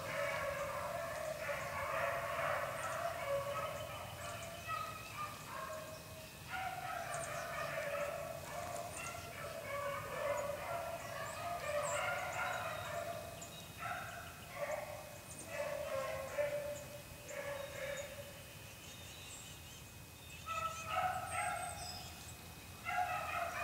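A pack of beagles baying in full cry as they run a rabbit, several voices overlapping almost without a break. The chorus thins a few seconds before the end, then picks up again.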